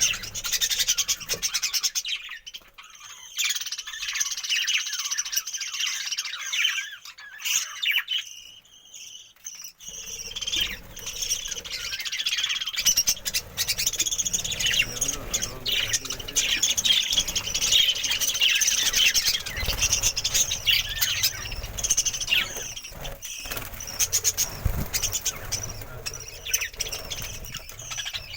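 A flock of budgerigars chattering and chirping continuously, many birds calling at once. The chatter thins out for a few seconds near the start, then picks up again.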